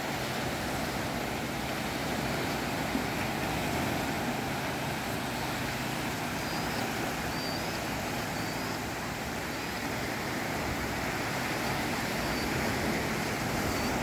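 Small sea waves washing against the shore in a steady surf hiss. The waves are gentle because the tide is going out. A few faint high chirps come near the middle.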